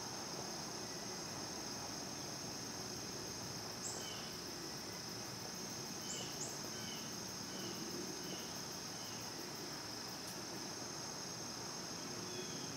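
Steady, high-pitched drone of a crickets-and-insects chorus in the woods. A few faint short chirps come in a loose series through the middle.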